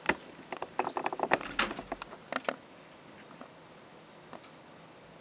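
Quick footsteps across a room: a fast run of taps and knocks in the first two and a half seconds, then a few faint taps.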